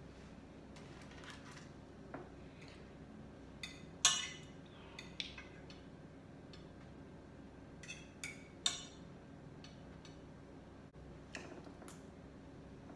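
Cutlery clinking against a plate or dish: about eight light, scattered clinks over a faint steady hum, the loudest about four seconds in and a quick cluster around eight to nine seconds.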